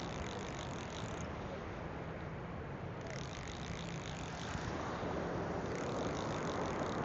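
Spinning fishing reel being cranked with rapid clicking, in three short spells, over steady surf and wind noise.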